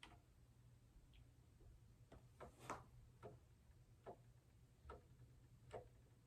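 Faint, sharp clicks from an electric baby swing's drive mechanism as it swings, coming about once a second at uneven spacing over a low steady hum.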